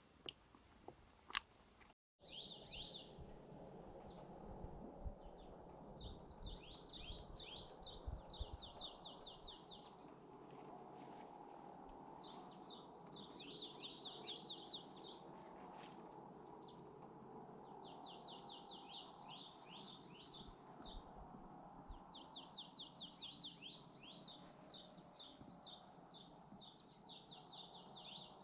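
A small songbird singing in phrases of rapid, repeated high down-slurred notes. Each phrase lasts a few seconds and repeats after short pauses, over a faint steady background hiss. The song begins after an abrupt break about two seconds in.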